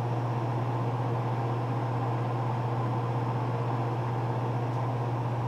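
A steady low electrical hum with a faint hiss over it, unchanging throughout.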